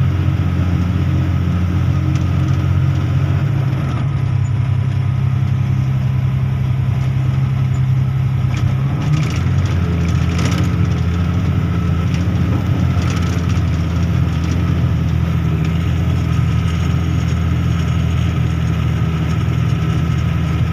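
Caterpillar 777E haul truck's V8 diesel engine running steadily under way, heard from inside the cab, with a deep, even drone. Its note shifts a little about four and nine seconds in.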